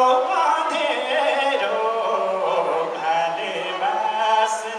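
A man singing a Nepali Teej folk song into a microphone, with held, bending notes.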